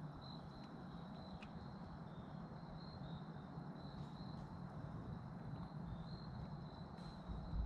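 Crickets calling: a steady, high, pulsing trill over a low rumble, with a low thump near the end.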